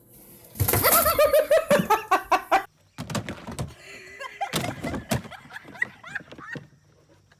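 Someone laughing in a quick run of high, pulsing bursts for about two seconds, then a series of knocks and thumps.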